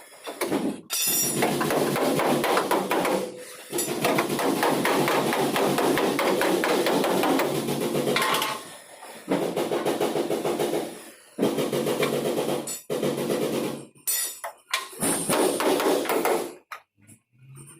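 Rapid repeated hammering on vehicle bodywork, in long runs of several seconds broken by short pauses and growing choppier near the end.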